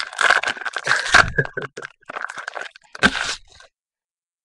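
Plastic wrapper of a football trading-card pack being torn open and crinkled by hand, a run of crackling rustles that dies away about three and a half seconds in.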